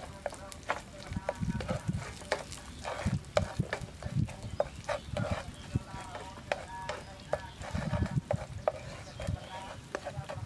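A spatula scraping and tapping against a frying pan as food is stirred and fried in hot oil, with a light sizzle underneath. The scrapes and taps come irregularly, several a second.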